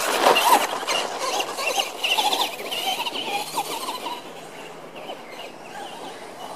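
A radio-controlled truck tearing past close by on dirt, loudest as it passes, with a quick run of high squealing rises and falls in pitch, then fading as it drives off.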